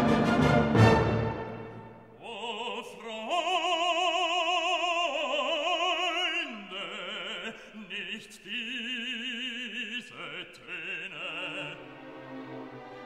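Music: a loud orchestral passage dies away over the first couple of seconds, then a solo operatic voice sings long held notes with wide vibrato over light accompaniment.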